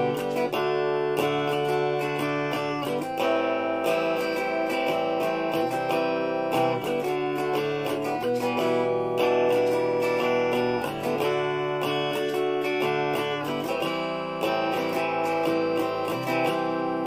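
Stratocaster-style electric guitar played with a clean tone: chords picked and strummed with many quick attacks, the chord changing every second or two.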